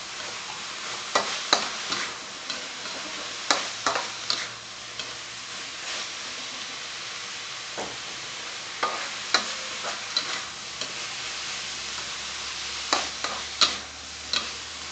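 Minced pork and sliced onion sizzling steadily in a hot steel wok, with a metal spatula scraping and clanking against the wok in spells of stir-frying, about four of them.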